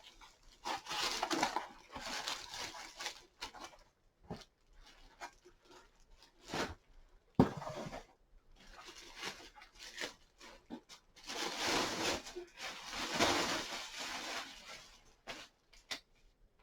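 Rustling and crinkling of packaging being handled and pulled off as a keyboard controller is unwrapped. It comes in several stretches, with a sharp knock about seven seconds in.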